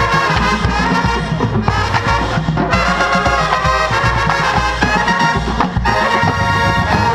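Marching band playing the opening of its production tune, the brass section loud with a steady beat underneath.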